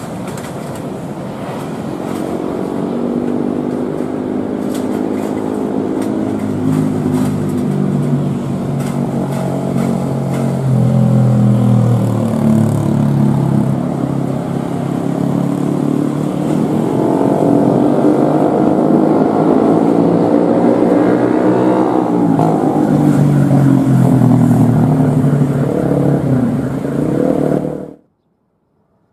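Boeing 737 jet engines on a landing approach, a loud whine of several tones that build as the airliner comes closer, bending down and back up in pitch as it passes. The sound cuts off abruptly near the end.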